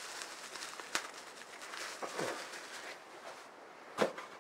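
Faint handling of packaging: bubble wrap and a polystyrene foam insert in a cardboard box. There is a sharp click about a second in, a brief falling squeak a little after two seconds, and a knock near the end.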